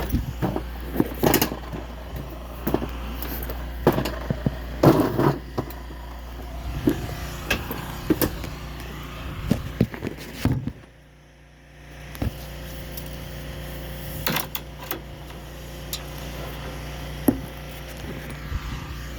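Electric roll-up storm shutter running: a steady motor hum with clacking and rattling of the slats, cutting out for about a second and a half near the middle and then starting again.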